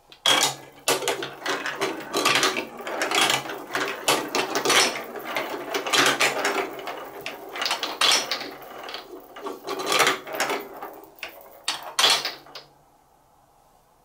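Four plastic balls rolling and clattering down a plastic block marble run through its chutes and curved tubes, with many sharp clicks and knocks over a steady rattle. The clatter stops near the end as the balls come to rest in the bottom tray.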